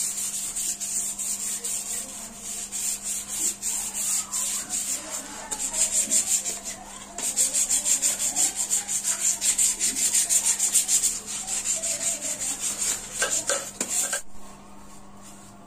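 Sandpaper rubbed by hand along a wooden axe handle in rapid back-and-forth strokes, with a brief pause about halfway through, stopping a second or so before the end.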